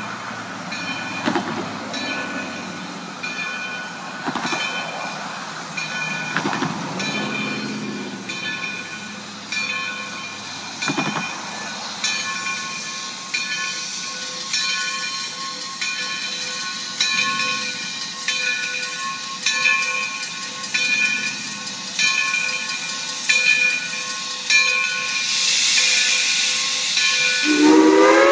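Steam locomotive No. 60 drifting slowly past a grade crossing with heavy steam hiss, while the crossing bell rings steadily throughout. The hiss swells near the end, and the locomotive's chime steam whistle then starts to blow, its pitch rising as it opens up.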